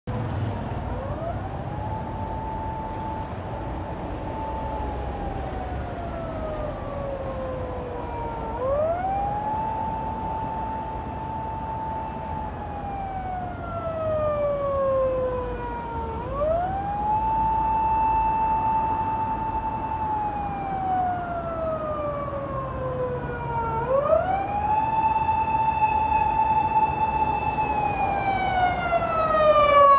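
Tow truck's emergency siren wailing in slow cycles about every eight seconds: a quick rise, a long steady hold, then a long slow fall. It grows louder as the truck approaches, over the low rumble of traffic.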